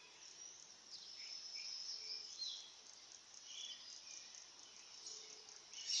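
Faint dawn chorus of small birds: scattered short chirps and trills from several birds over a continuous high-pitched buzz.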